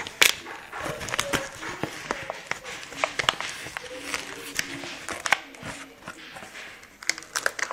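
Plastic insect container and cardboard box handled close to the microphone: a string of sharp clicks and knocks with rustling.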